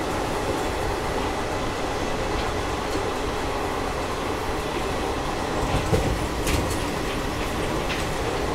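Passenger train coach running along the track: a steady rumble of wheels on rail, with a short cluster of knocks from the wheels about six seconds in.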